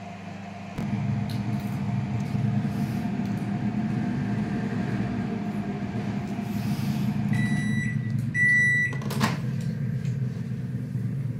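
LG MC2886 convection microwave running on grill mode with a steady low hum that steps up about a second in. Near the end it beeps twice, a short beep then a longer one, signalling that the cooking time is up, and then the door is opened with a click.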